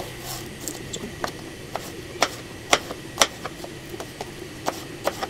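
Kitchen knife slicing cucumbers into long spears on a plastic cutting board: a series of sharp taps of the blade striking the board, several about half a second apart, the loudest around the middle.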